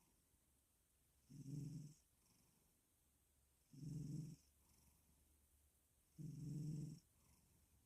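Black cat snoring in its sleep: three short, low snores about two and a half seconds apart, one per breath, with quiet in between.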